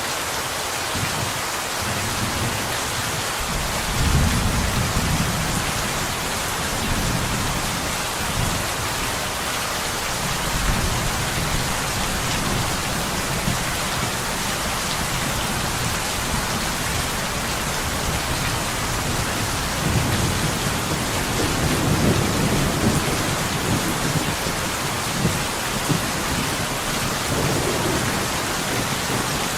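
Steady rain on window glass, a dense even hiss, with low rumbles of thunder rolling in several times, the strongest a few seconds in and again past the two-thirds mark.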